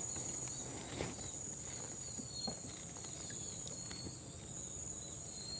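Insects droning steadily at a high pitch, with a few faint short chirps and a soft knock about a second in.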